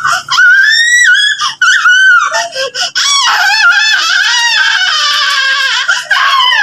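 A toddler's high-pitched squeals and shrieks: short cries at first, then one long unbroken shriek from about three seconds in.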